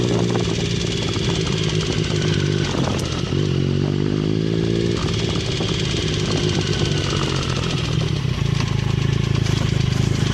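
A 2009 Triumph Speed Triple's three-cylinder engine is running with a light, steady tick. The revs rise slowly for about two seconds near the middle and then drop back. The tick was not cured by a new timing chain, and the dealer suspects a worn small-end bearing in the middle cylinder.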